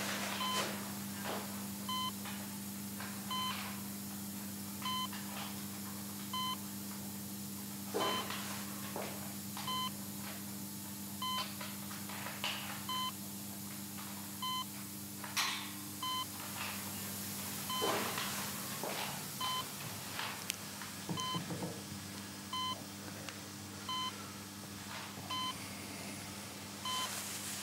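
Hospital patient monitor beeping a short tone a little under once a second, like a heart monitor following a pulse, over a low steady hum.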